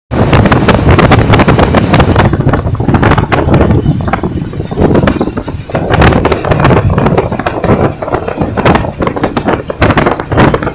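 Wind buffeting the microphone on a moving motorcycle, a loud rumbling gusty noise, with the motorcycle's engine and road noise underneath.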